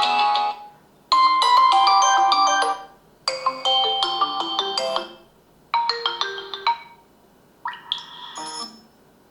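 A Vivo Y100 5G's speaker playing short previews of its built-in system ringtones as they are picked from the list: four different melodic tunes in turn, each lasting one to two seconds, with brief gaps between them.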